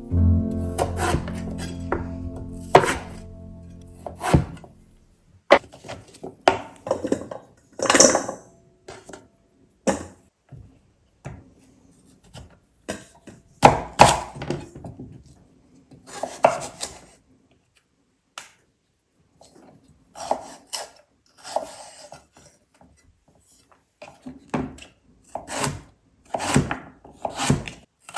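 A knife chopping food on a cutting board, in irregular groups of strokes with short pauses between them. Soft music fades out over the first four seconds or so.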